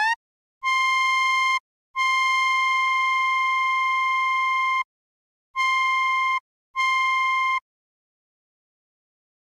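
Arturia OP-Xa V software synthesizer playing a bright, single-pitch lead tone on a high note: it ends an upward pitch slide at the very start, then plays four notes on the same pitch, the second held about three seconds and the others under a second each, with short gaps between.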